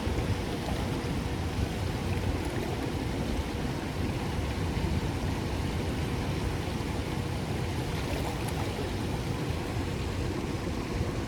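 Steady rushing noise of flowing river current around a fishing kayak, heaviest in the low end, with a faint steady hum.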